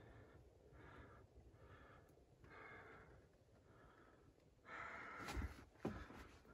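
Faint breathing of a person climbing down, about one breath a second. Near the end come scuffing and a couple of dull knocks as feet land on loose rock.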